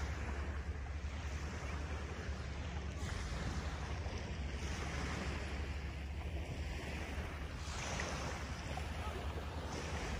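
Wind rumbling on the microphone over the wash of small waves on the shore, the hiss swelling every two or three seconds.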